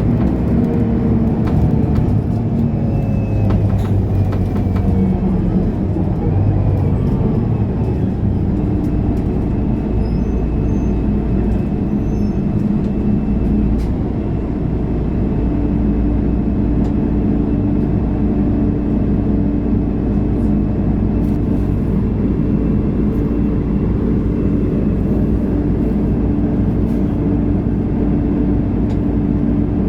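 Mercedes-Benz O530 Citaro Ü city bus running under way, its engine and driving noise steady. The engine note shifts a couple of times in the first half, then holds level for the rest.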